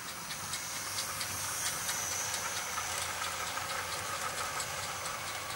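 00 gauge model trains running on the layout's track: a thin electric motor whine with regular clicking of wheels over rail joints, about three clicks a second.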